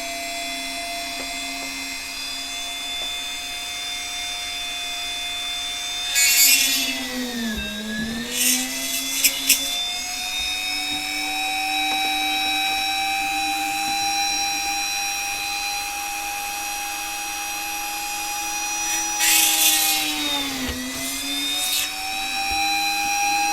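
Dremel 3000 rotary tool in a drill stand running with a steady whine. Twice its pitch sags and then recovers as the bit is pushed through the keyboard's plastic plate and loads the motor. A scratchy hiss comes with each plunge, and a few sharp clicks follow the first one.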